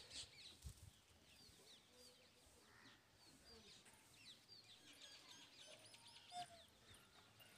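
Near silence outdoors, with faint chirping of small birds: many quick, high chirps throughout.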